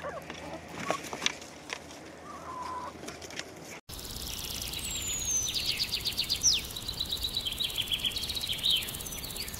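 Backyard hens pecking, a few clicking pecks and a short hen call. After a sudden cut, wild songbirds sing: a falling whistle and fast runs of high trilled notes.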